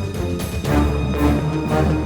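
Background theme music with a heavy low end and regular percussive beats.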